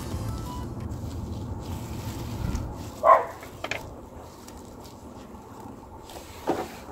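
A dog barking: one sharp bark about three seconds in, a fainter one just after, and another near the end, over a low steady background.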